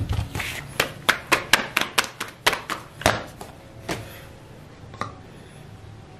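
Hands patting and pressing paratha dough out thin on a floured tabletop: quick sharp taps, about four a second, for three seconds, then two single taps.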